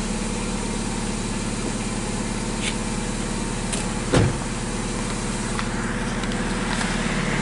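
BMW 316i E90's four-cylinder petrol engine idling steadily on a cold start, with a heavier, somewhat metallic note from its modified exhaust. A brief thump about four seconds in.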